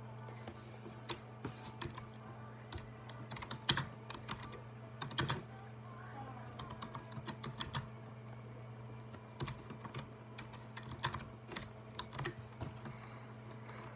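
Irregular light taps and clicks close to the microphone, the loudest about 4 and 5 seconds in, over a steady low hum.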